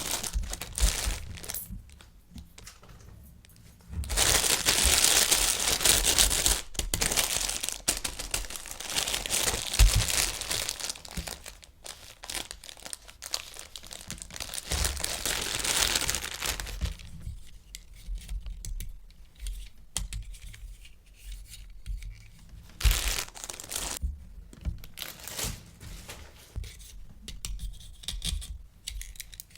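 Packaging being torn open and crinkled by hand during a toy unboxing: a long stretch of tearing and rustling from about four seconds in, then quieter scattered crinkles and clicks of handling.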